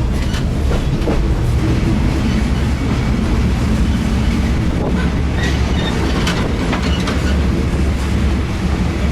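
Passenger train running, heard from inside a third-class carriage: a steady low rumble with the wheels clicking over the rail joints.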